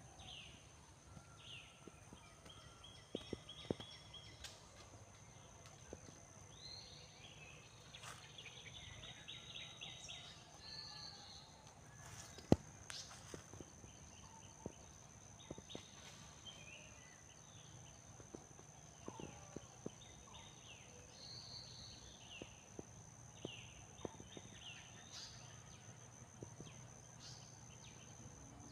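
Several birds chirping and trilling, with a steady high insect whine underneath. Occasional faint clicks, and one sharper click about halfway through.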